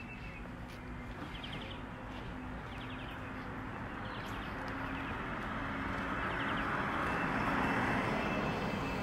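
A passing motor vehicle: its engine and road noise rise slowly over several seconds to a peak near the end, then begin to fade.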